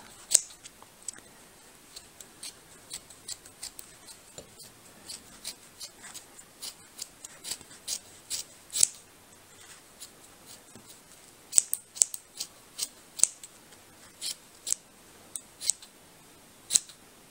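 Scissors snipping yarn over and over, trimming the loose ends of a yarn pompom: sharp, irregular snips, about one or two a second, with a quicker run of louder snips about two-thirds through.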